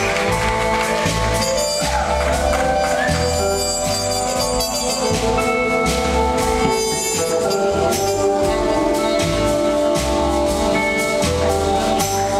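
Live band playing loudly without vocals: electric guitar, saxophone, bass and drums, with bass notes pulsing steadily underneath.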